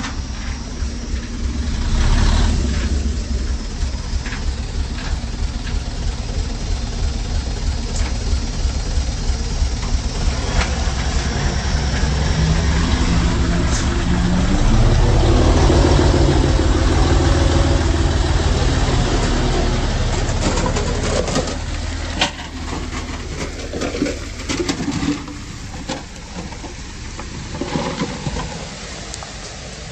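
Diesel engine of heavy earthmoving machinery working under load. It revs up and runs loudest in the middle, then eases off, with scattered sharp knocks near the end.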